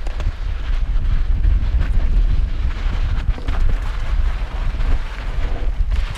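Wind rushing over the microphone of a helmet-mounted camera as a downhill mountain bike descends fast over loose gravel, with a steady low rumble of tyres on dirt and scattered clicks and rattles from stones and the bike.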